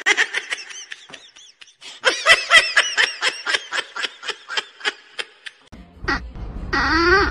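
High-pitched giggling laughter, a quick run of ha-ha pulses several a second that goes on for over five seconds, then stops. Near the end comes a short pitched voice call that rises.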